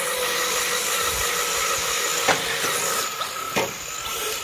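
Electric Traxxas 4-Tec RC cars driving on concrete: a steady motor and gear whine over tyre hiss, with two sharp knocks, one about two seconds in and another about a second later.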